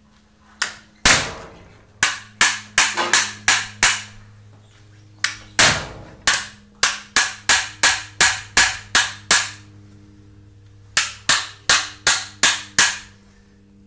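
Hammer tapping a new bushing into a garage door opener's motor plate: sharp taps in three runs of quick strokes, about three a second, with short pauses between the runs, driving the bushing home until it is pressed in.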